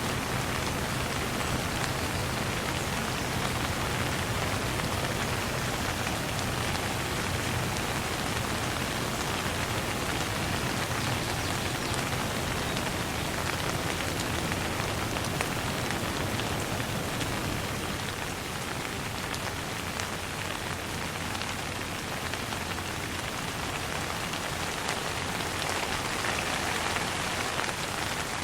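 Light rain falling steadily, an even hiss of drops with scattered sharper drop ticks.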